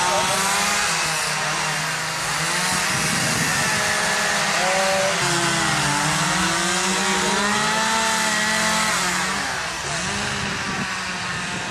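Two-stroke chainsaw running and cutting into wood, its engine revving up and down repeatedly with the cuts. It eases off and gets quieter near the end.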